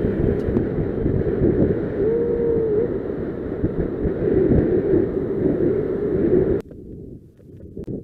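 Wind buffeting the microphone: a loud, rumbling rush that cuts off abruptly about six and a half seconds in.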